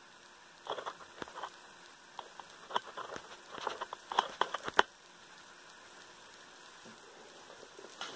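Barbecue-sauced pork spare ribs just out of the broiler, crackling and popping on a hot broiler pan: irregular sharp pops through the first five seconds, then only a faint hiss.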